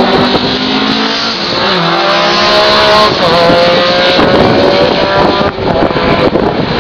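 Historic rally car engine running hard at racing speed as it passes; its pitch falls briefly, then climbs again as it accelerates, and holds steady.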